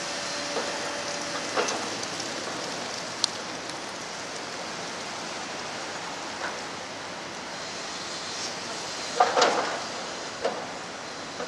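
Building demolition: a steady rushing noise with scattered knocks and clanks, and a louder crash of debris about nine seconds in.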